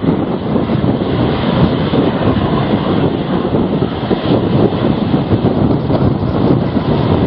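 Strong gale-force wind buffeting the microphone: a loud, unbroken rumble that gusts up and down.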